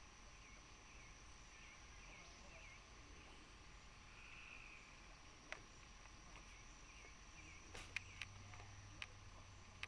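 Faint natural ambience: small chirping animal calls repeating in the first half over a steady high-pitched whine, with a few sharp clicks in the second half.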